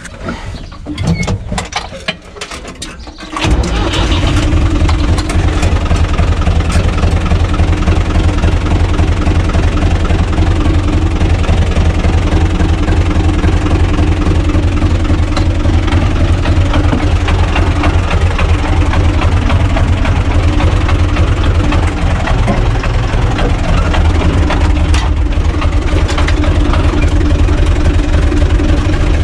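UTB U445 DT tractor's four-cylinder diesel engine cranking unevenly for about three seconds, then catching suddenly. It settles into a loud, steady idle.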